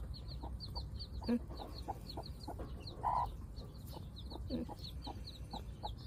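Broody mother hen clucking softly and steadily, two or three low clucks a second, while her newly hatched chicks peep in quick high chirps. There is one short louder note about three seconds in.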